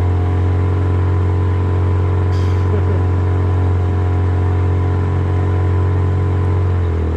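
Outboard motor of a small jon boat running steadily at cruising speed under way; just before the end its pitch drops a little as it is throttled back.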